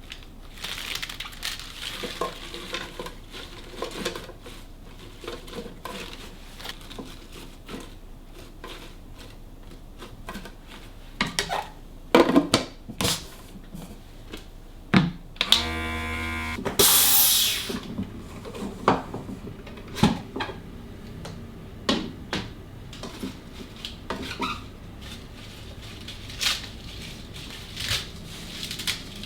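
Kitchen handling sounds: dishes, containers and utensils set down and knocked together in scattered clinks and knocks. About halfway through there is a short buzzing hum, followed at once by a brief hiss.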